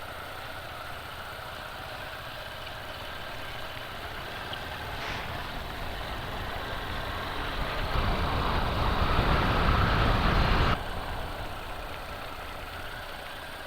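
A motor vehicle engine running, growing louder over several seconds, then cut off abruptly about three seconds before the end.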